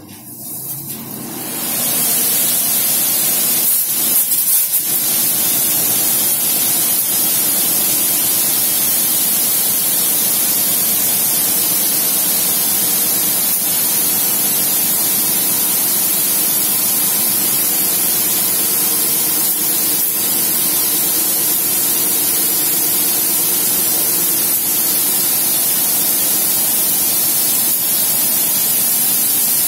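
High-pressure water spray from the nozzles of an automatic bike-wash arch, coming on and building over the first couple of seconds into a steady loud hiss as it mists the motorcycle, with a faint steady hum underneath.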